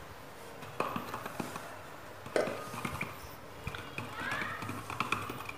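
Knocks and clicks from handling a paintbrush and tools, then a stick stirring thinned white oil paint in a cut-down plastic bottle, scraping and tapping against the plastic wall in quick small ticks.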